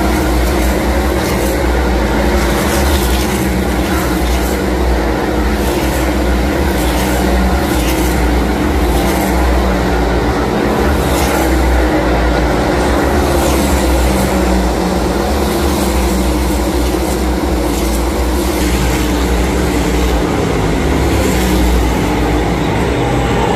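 NASCAR Cup Series stock cars racing at speed, their V8 engines a loud, steady drone with cars passing one after another. Near the end one car passes with a falling pitch.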